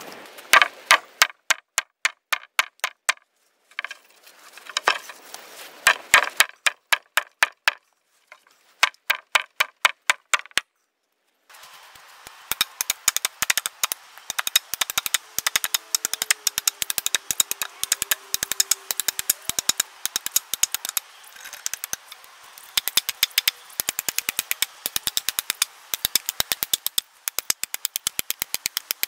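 Hatchet chopping into a birch pole: a long run of sharp wooden blows, about two to four a second, broken by a few short gaps.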